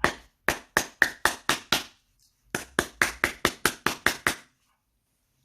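A training tactical pen struck hard against something, again and again, with sharp knocks. There are two quick runs of about seven to nine strikes each, roughly four a second, with a half-second break about two seconds in and a stop about four and a half seconds in.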